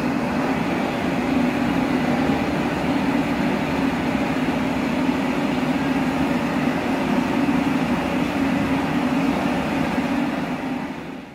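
Steady engine-like drone of a radio-controlled model truck's electronic sound module, running evenly and dipping away near the end.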